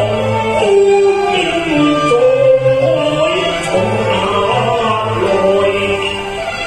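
Cantonese opera (yuequ) music: a gliding, ornamented melody over steady low sustained notes from the accompanying ensemble.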